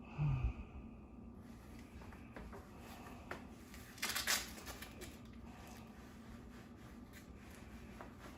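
Light handling noises in a small room: a few scattered clicks and a short rattle about four seconds in.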